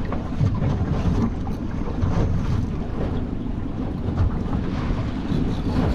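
Wind buffeting the microphone, with a steady rumble of wind and choppy sea around a small open boat.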